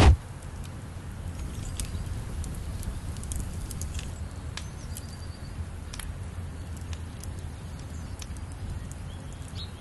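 Low steady background hum with scattered faint sharp clicks and ticks throughout.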